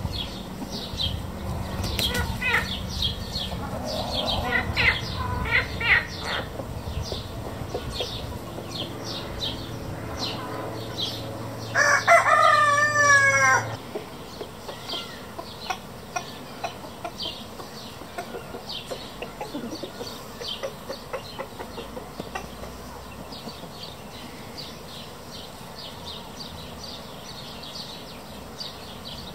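Chickens clucking, with a rooster crowing once about halfway through. The crow is the loudest sound and lasts under two seconds.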